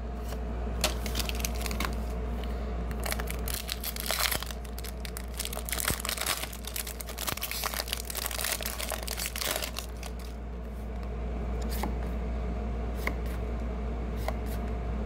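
Foil Pokémon booster pack wrapper crinkling and tearing as it is opened and handled, with clicks of cards being shuffled, over a steady low hum.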